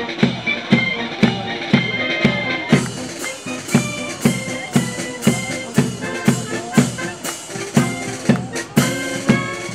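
Street brass band playing a march: a bass drum beating about twice a second under saxophones and brass horns.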